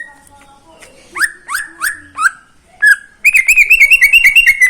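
Green leafbird (cucak ijo) singing: a few separate sweeping whistled notes, then from about three seconds in a loud, fast run of alternating notes, about eight a second.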